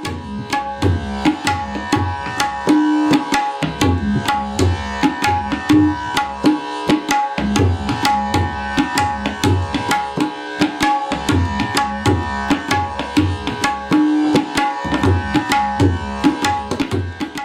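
Tabla playing a steady rhythmic pattern of deep resonant bass strokes and sharp high strokes over a steady held tone.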